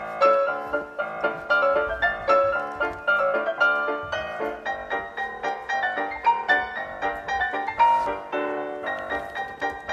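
Background piano music with a quick, even run of notes.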